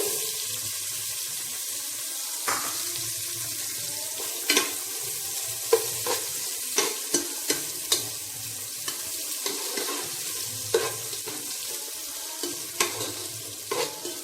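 Chopped onion sizzling in hot oil and ghee in a pan, sautéing with the whole spices and herbs. It is stirred throughout, with irregular scrapes and knocks against the pan over the steady sizzle.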